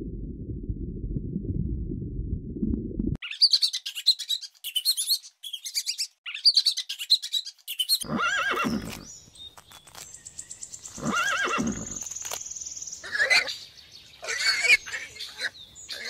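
A low rumble for about three seconds, then quick high bird chirps, then, from about halfway through, horses whinnying several times.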